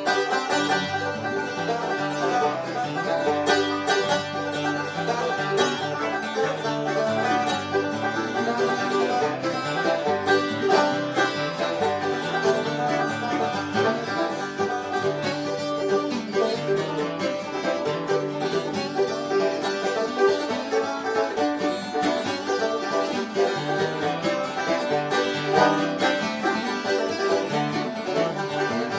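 Instrumental bluegrass picking, with rapid banjo rolls over acoustic guitar and a steady bass line, playing without a break.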